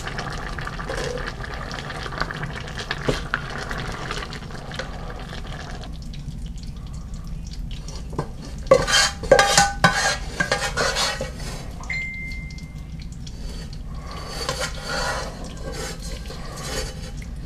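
A ladle scooping cooked pinto beans out of a pot into a metal wire strainer, with wet sloshing of the bean liquid. Bursts of clinks and scrapes against the pot and strainer come in the second half.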